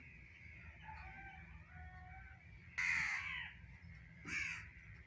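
Crows cawing: two harsh caws, about three seconds in and again just over a second later, with fainter calls before them.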